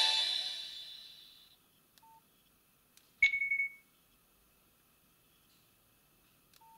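Nokia 6280 phone speaker: the last notes of a ringtone fade out over about a second and a half, followed by short electronic key beeps. The loudest is a click with a half-second higher beep about three seconds in.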